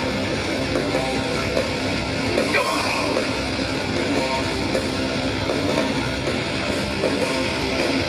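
Live heavy metal band playing through a festival PA, led by distorted electric guitar strumming with bass underneath.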